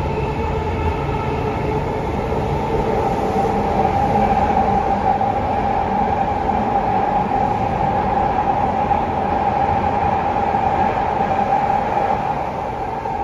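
Toei Oedo Line 12-600 series subway car, a linear-motor train with a Hitachi SiC VVVF inverter, running through a tunnel as heard from inside the car. Its running noise is a steady rumble with a few steady whining tones above it.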